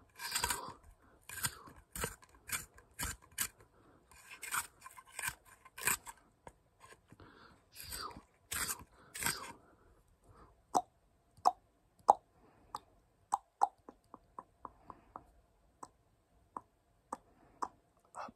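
Wooden pencil turned in a small handheld plastic sharpener: a run of short, gritty, crunching shaving strokes as the blade cuts the wood. After about ten seconds these give way to a string of sharp, light taps, about two a second.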